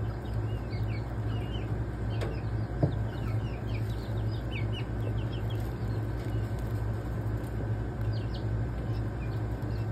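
Chicks peeping, with many short high chirps over a steady low hum. A single knock comes about three seconds in.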